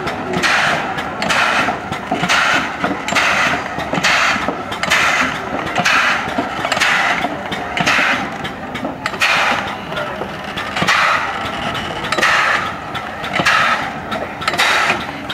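Replica 1769 Cugnot steam fardier under way. Its two-cylinder steam engine chuffs steam in an even rhythm, a little more than one hissing puff a second, over a low mechanical rumble.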